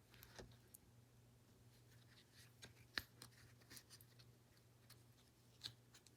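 Near silence: quiet room tone with a faint low hum and a few scattered faint clicks.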